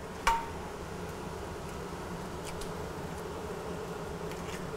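Egg frying on a hot flat-top griddle: a steady sizzle. There is a single sharp tap a moment after the start.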